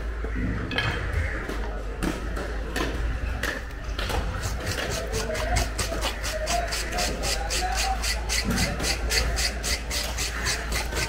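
A knife scraping along the skin of a large cobia in quick, even strokes, about four a second, starting about four seconds in. Voices can be heard in the background.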